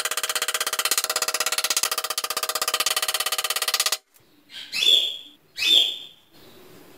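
A pet talking parrot screeching: one harsh, rapidly pulsing shriek that stops abruptly about four seconds in, then two shorter, higher calls about a second apart.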